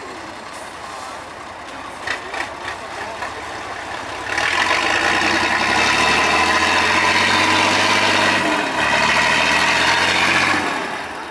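IFA L60 4x4 trial truck's diesel engine, running low with a few knocks at first, then revving hard under load about four seconds in, held high apart from a brief dip past halfway, and easing off near the end.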